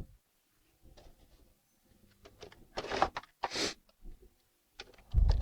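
Plastic toy truck being handled and turned over on a work surface: scattered light clicks and knocks, a brief scrape about three and a half seconds in, and a heavier thump near the end.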